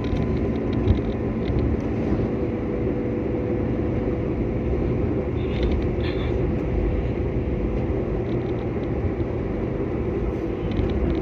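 Steady road and engine noise inside a moving car's cabin: a continuous low rumble with a faint hum.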